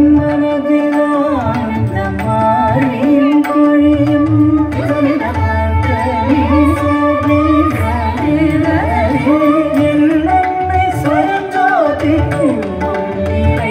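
Carnatic music accompanying a classical dance: a wavering, ornamented melody over a steady held drone, with hand-drum percussion underneath.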